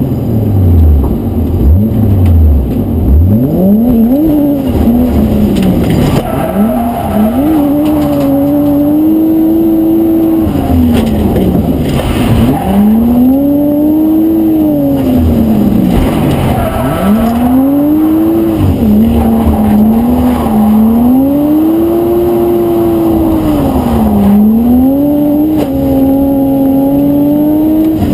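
Lexus IS300 (SXE10) drift car's engine heard from inside the cabin, loud, its revs climbing and falling again and again as the throttle is worked through the corners. Near the start the pitch drops low before it climbs back up.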